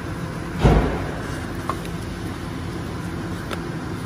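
Hand work on a car's auxiliary drive belt: a short thump and rustle about a second in, then a couple of light clicks, over a steady low hum.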